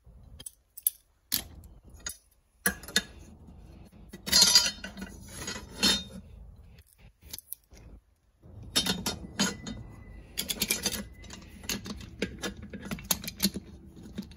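Metallic clinks, knocks and clatter from handling a vacuum brake booster's steel shell and the clamps used to press it together. Scattered sharp knocks early on give way to a loud burst of clatter about four seconds in, then a busy run of small clicks in the second half.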